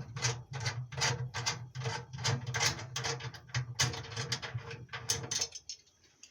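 Ratcheting clicks, about three a second, over a low hum, as a screw fitting inside a dishwasher is turned loose. Both stop about five and a half seconds in.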